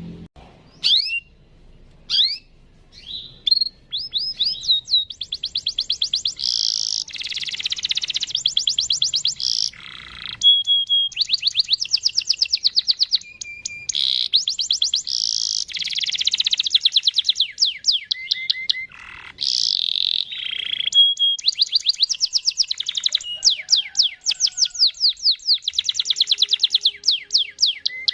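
Male domestic canary singing a long rolling song. A few separate chirps come first, then fast trills of rapidly repeated notes, broken by short held whistles and brief pauses.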